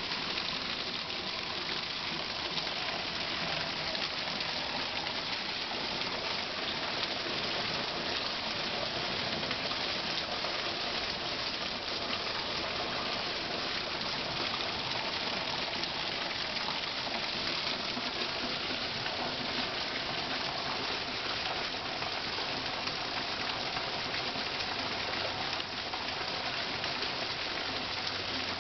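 Heavy, steady rain pouring down on trees and grass, with runoff gushing off the porch roof edge.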